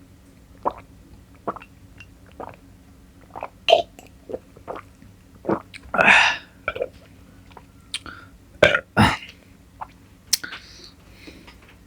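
Close-miked eating of syrupy Indian sweets: soft wet chewing clicks at first, then a run of louder, longer wet mouth noises, the longest about six seconds in.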